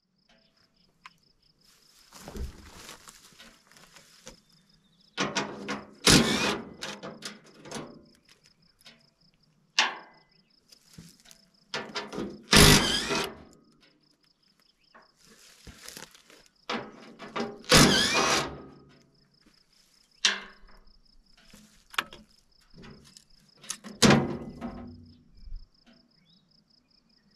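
Cordless 3/8-inch DeWalt impact wrench run in short bursts of a second or two, about eight times, backing out the bolts of a bulldozer's engine side panel. Underneath, an insect chirps in a steady, even high-pitched pulse.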